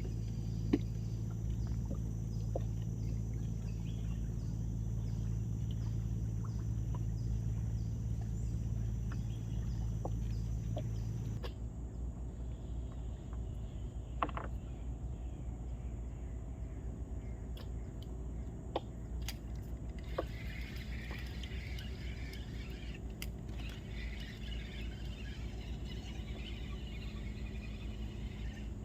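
Outdoor riverside ambience: a steady low motor-like hum with faint regularly repeating ticks cuts off abruptly about eleven seconds in, leaving a quieter background with a few isolated clicks; in the last third a busy high chirping chorus sets in.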